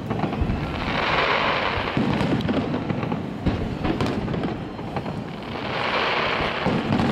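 Fireworks display: aerial shells bursting in a run of sharp bangs, with a hissing wash that swells about a second in and again near the end.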